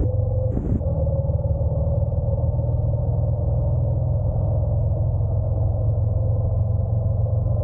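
Honda NC750X DCT's parallel-twin engine running steadily under way, mixed with a heavy low rumble of wind on the camera. A brief hiss about half a second in.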